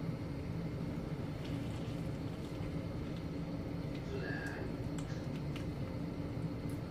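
Steady low hum of a kitchen range hood fan, with a few faint clicks and a brief higher squeak about four seconds in.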